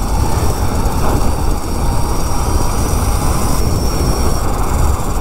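Wind rushing over the microphone of an electric mini bike under acceleration, with road noise and a faint, steady, high whine from its Kunray 72-volt 3000-watt motor, a little stronger for about a second near the end.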